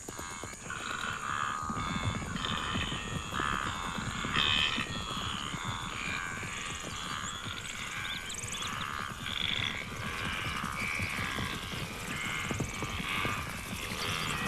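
A wildebeest herd giving many overlapping croaking grunts. A low rumble of galloping hooves sets in about two seconds in as the herd stampedes.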